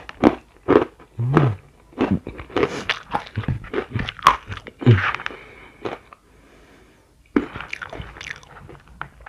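Close-miked crunching and chewing of Sukro flour-coated peanuts and pilus crackers mixed with leftover noodles, in many quick crunches with a quieter pause a little after the middle.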